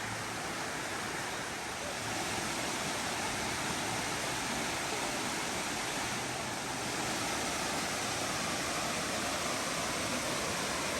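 Waterfall rushing steadily, heard from the top of the falls: a constant, even wash of falling water that grows a little louder about two seconds in.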